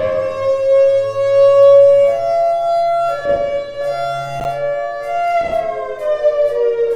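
Federal Signal Thunderbolt siren sounding a steady tone that steps up in pitch about two seconds in and slides back down near the end, with a few sharp clicks in the middle.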